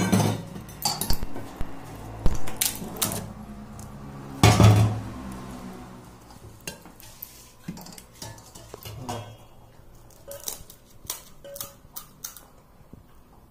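Stainless-steel bowls, plates and a ladle clinking and knocking as puris are filled by hand, with the loudest knocks at the start and about four and a half seconds in, then lighter clinks.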